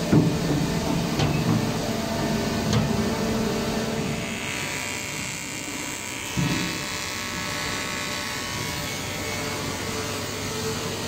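Workshop machinery noise: a steady hum of several machines, with a higher whine starting about four seconds in and lasting a couple of seconds, and a few knocks, one near the start and one about six seconds in.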